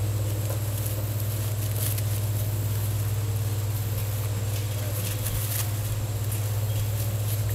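A steady low hum, with faint scattered rustles and pattering as six-week-old German Shorthaired Pointer puppies scuffle over loose straw.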